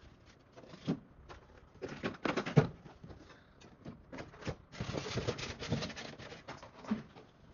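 Foam-and-plastic airframe parts being packed into a cardboard box: a run of knocks and clicks, the loudest about two and a half seconds in, then a longer stretch of foam rubbing and scraping against cardboard as a foam lid is pressed down, and one more knock near the end.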